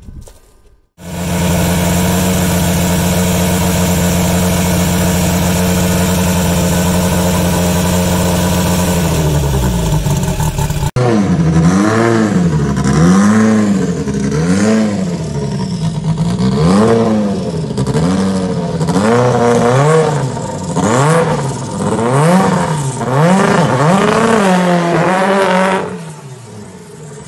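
Renault 5 rally car's engine held at high revs for several seconds, then dropping away. After a cut it is blipped about a dozen times, the revs rising and falling roughly every second and a half.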